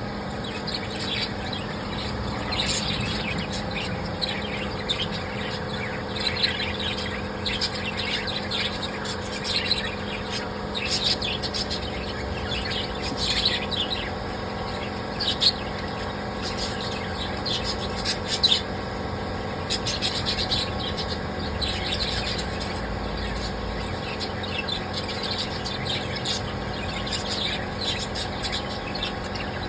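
Small birds chirping and twittering in quick, short calls throughout, over a steady low hum.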